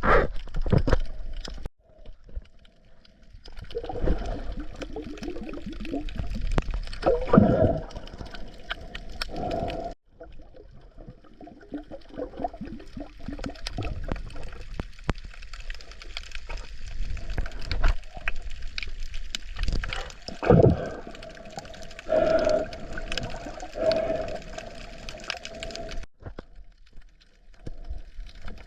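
Water gurgling, sloshing and bubbling close to the microphone, in swells, the way it sounds while snorkelling. It cuts off abruptly three times.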